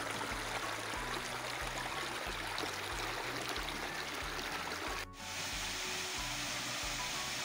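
Background music with a low repeating bass line, over the steady rush of a small stream running over stones. The sound dips out for an instant about five seconds in.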